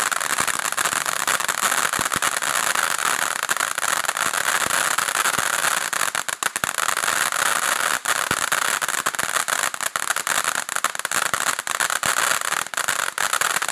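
HoneyBoom Super Purple Rain ground fountain firework spraying sparks with a loud, steady hiss, with frequent sharp crackles through it.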